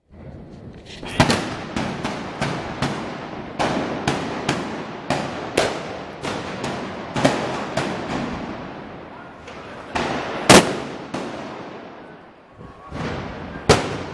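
A rapid, irregular series of about twenty loud explosive bangs, each followed by an echoing tail. The loudest come about ten and a half seconds in and again near the end.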